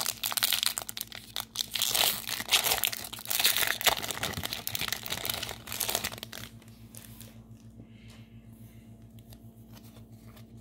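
Foil Pokémon booster pack wrapper crinkling and tearing as it is opened by hand for about six seconds, then much quieter handling of the cards, over a faint steady low hum.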